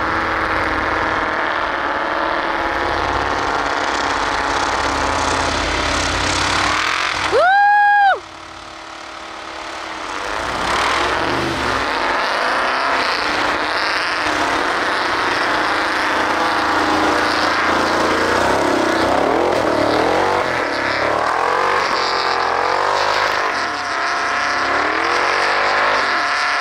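Off-road truck engines running and revving in snow, their pitch rising and falling repeatedly through the second half. A single loud, steady tone lasting under a second cuts in about a third of the way through.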